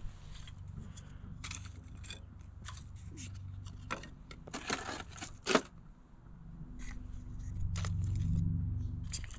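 Thin wooden kindling sticks clattering and scraping against each other and the metal fire pit as they are stacked by hand over lit firelighters: a run of light knocks, the sharpest about five and a half seconds in. A low rumble swells near the end.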